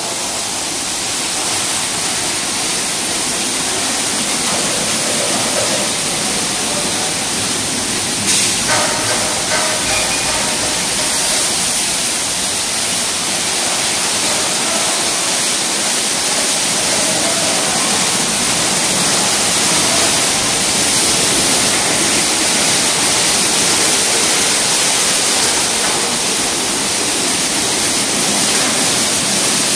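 Risense CC-690 tunnel car wash machine running: water spray and spinning brushes scrubbing a car, a steady rushing hiss. A few light knocks come about eight to ten seconds in.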